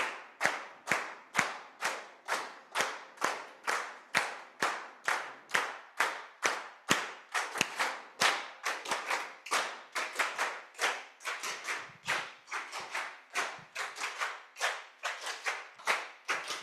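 A choir clapping in unison in a steady triple-meter pattern, about two claps a second. About eight seconds in, a second group joins with a cross-rhythm, making the claps denser: a triple-against-duple clapped polyrhythm of the kind that accompanies traditional South African choral song.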